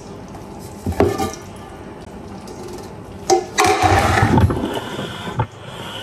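Steel ladle clinking and scraping against a large aluminium cooking pot as oil is ladled into it: one sharp clink about a second in, then a longer clatter and scrape a little past halfway.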